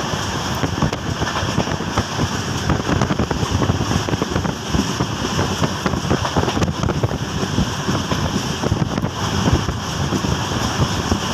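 Azimabad Express passenger train running along the track: a steady rumble of wheels on rails with dense, rapid clatter, and wind buffeting the microphone.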